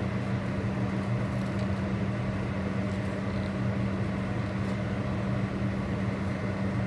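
A steady low mechanical hum that holds one pitch throughout.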